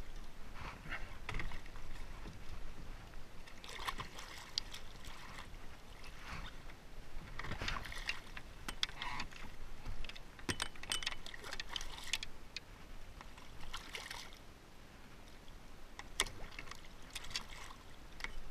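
Water lapping and splashing around a kayak's hull, with scattered sharp clicks and knocks of fishing gear against the boat. Near the end a hooked striped bass splashes at the surface beside the kayak.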